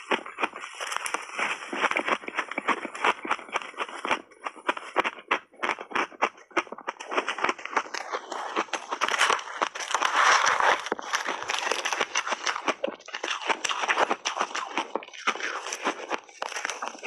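Big mouthfuls of shaved ice being bitten and chewed: a dense, continuous run of crisp crunches, loudest about ten seconds in.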